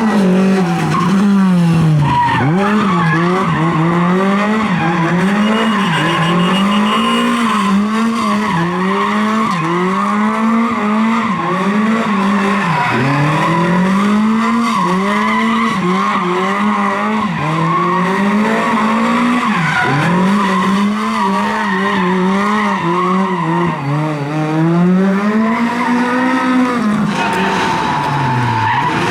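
A rally car's engine revving up and down repeatedly, its pitch rising and falling every second or two, with tyres squealing steadily underneath as the car slides.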